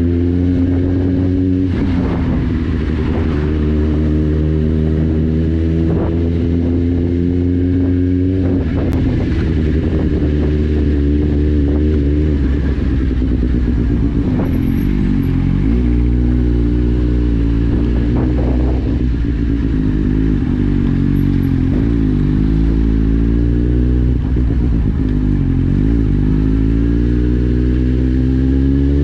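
Kawasaki Z750's inline-four engine running through an Akrapovic exhaust with the dB killer removed, loud, while the motorcycle is ridden through town. The engine note rises and falls over and over as the rider accelerates, shifts and rolls off.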